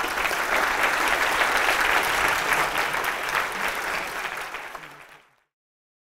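Audience applauding, a dense patter of many hands clapping that fades away about five seconds in and then stops dead.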